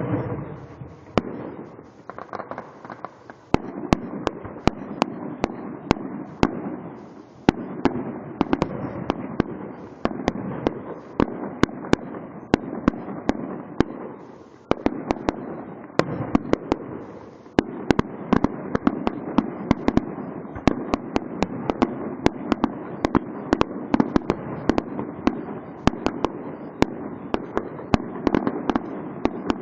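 Fireworks going off in a dense, continuous barrage of sharp cracks and crackling. It starts suddenly and swells again several times.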